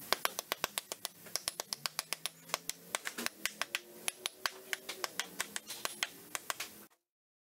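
Dead-blow mallet lightly and rapidly tapping a differential's outer cover plate on an aluminium transmission case, about five or six quick taps a second, gently seating the differential into the housing.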